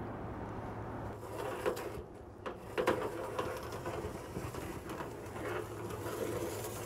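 Pencil scratching around the inside of an aluminium daylighting tube onto OSB roof sheathing: a run of short scraping strokes with a few light knocks, over a steady low hum.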